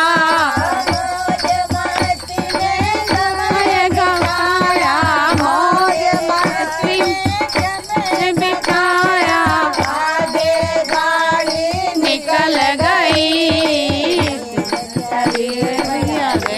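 Group of women singing a Hindi devotional bhajan, accompanied by a dholak drum and hand claps keeping a steady beat.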